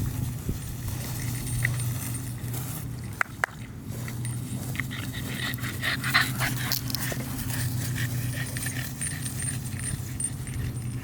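American bully dogs heard close by over a steady low hum, with a couple of sharp clicks about three seconds in.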